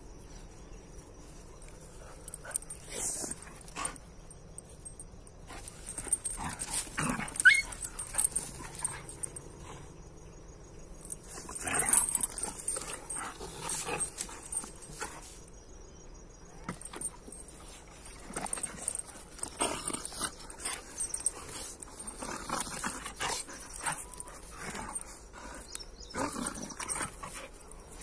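Two dogs wrestling and mouthing each other, making dog noises in irregular bouts of a second or two. The loudest bursts come about 7 and 12 seconds in, with quieter gaps between.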